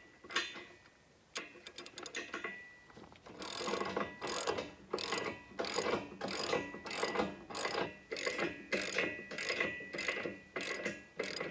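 Hand socket ratchet clicking as it drives bolts home on a backhoe subframe: a few scattered clicks at first, then steady back-and-forth strokes about two a second from a few seconds in.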